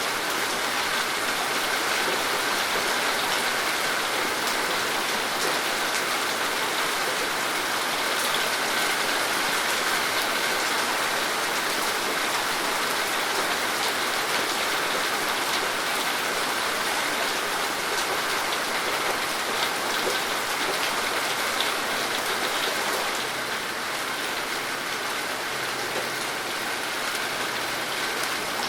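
Steady rain falling, a dense even hiss with many small drop ticks, easing slightly in loudness about two thirds of the way through.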